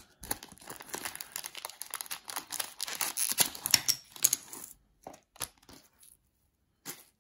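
Stiff plastic foil trading-card pack being torn open and crumpled by hand: dense crinkling and crackling for about four and a half seconds, then a few separate sharp clicks.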